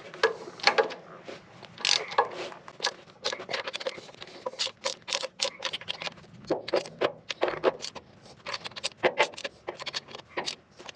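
Ratchet and wrench clicking in irregular runs, with metal clinks and scrapes, as exhaust manifold bolts are tightened on a Ford 460 cylinder head.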